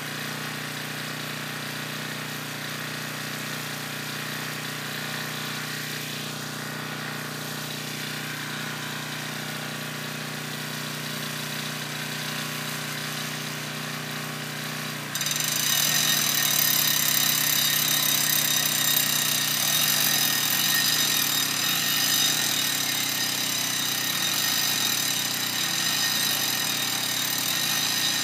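A powered rope winch running steadily as it hauls a line. About halfway through it gets suddenly louder, with a high whine on top.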